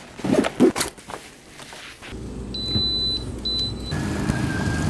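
A few sharp knocks, then a car's engine running, heard from the cabin as a steady low rumble, with two short high beeps and then a steady thin whine over it.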